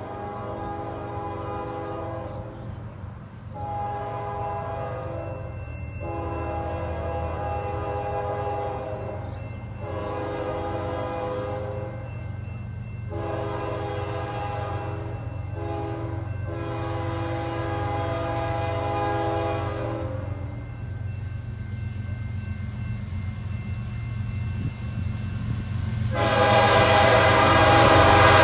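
Approaching CN freight locomotive's air horn sounding a chord in a long string of blasts, about six in the first twenty seconds, then much louder near the end as the locomotive draws close. A low diesel rumble runs under it.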